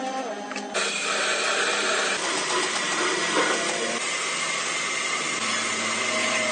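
CNC lathe running: a steady hissing machine noise with a faint, steady high whine. It gets louder just under a second in.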